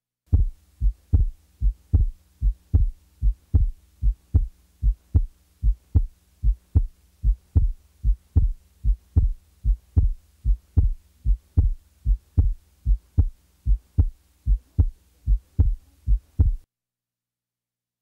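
Heart sounds of a normal person recorded by auscultation: a steady run of paired 'lub-dub' beats (first and second heart sounds). The second sound splits with each breath in and is single on breathing out: normal physiological splitting. A faint steady hum lies under the beats, which stop about a second and a half before the end.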